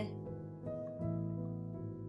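Background instrumental music of held notes, with new notes entering about a second in.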